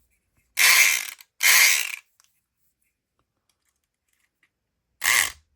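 A SouthOrd E500XT electric lock pick gun buzzing in three short runs as its vibrating needle rakes the pins of a three-pin padlock: two runs back to back about half a second in, then a shorter one near the end.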